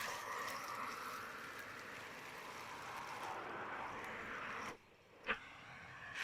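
Vacuum cleaner running as it sucks glitter off stairs, a steady hiss. The sound drops away sharply near the end, followed by a single short knock.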